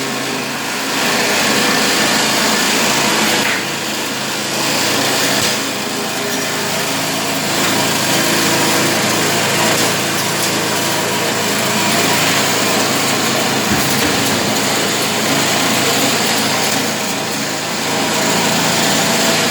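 Home-built vermicompost crushing and sieving machine running steadily, its motor-driven crusher and screen giving a constant mechanical din with a few brief dips in level.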